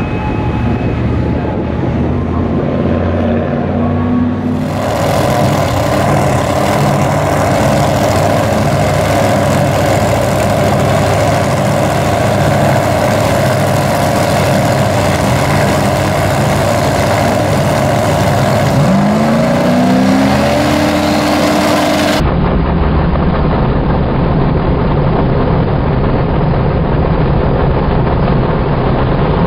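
Drag-racing engines, including a turbocharged Pro Mod S10 truck's, running loudly at the starting line, with a rising rev about two-thirds of the way through.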